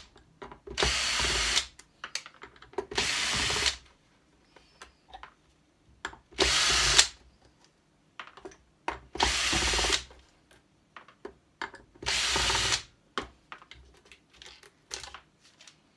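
Cordless drill-driver running in five short bursts of under a second each, unscrewing small screws from the back of a TV box. Small clicks and taps come between the bursts.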